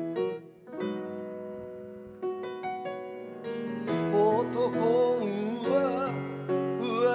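Piano playing a slow ballad passage on its own, then about four seconds in a man's voice comes in singing with vibrato over the piano and a low accompaniment.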